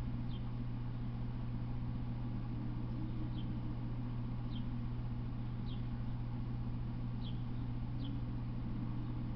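A steady low hum, with a short, high, falling chirp repeating every second or so.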